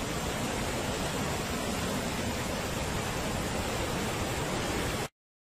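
Steady rushing roar of a fast brown floodwater torrent, which cuts off abruptly near the end.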